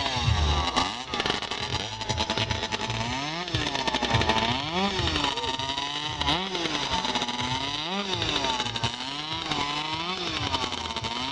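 Modified racing chainsaw engine being warmed up and revved repeatedly: the engine note climbs and falls back about once every second or so.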